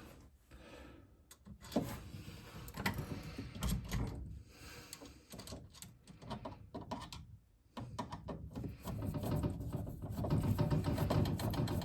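Screw being driven by hand with a screwdriver into an animatronic's plastic mounting: scattered clicks and scrapes, then from about eight seconds in a denser run of rapid clicking and grinding as the screw turns in.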